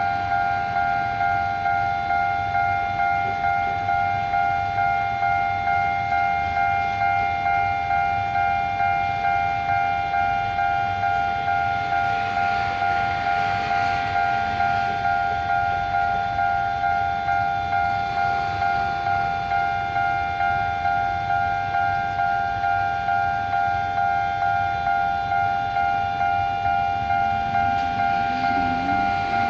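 Railway level crossing warning bell ringing in a steady, even rhythm of about two strokes a second, each stroke a two-tone ring that decays before the next, signalling that a train is approaching the crossing.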